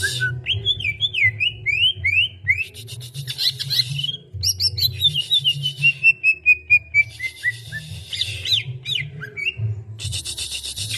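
Cucak ijo (greater green leafbird) singing: quick runs of clear slurred whistles rising and falling, with a long series of short notes stepping downward through the middle, broken by harsh raspy chatters.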